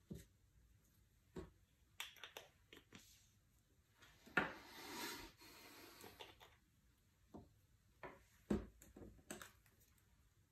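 Faint small knocks and clicks of painting materials being handled, with a brief rubbing swish about four seconds in.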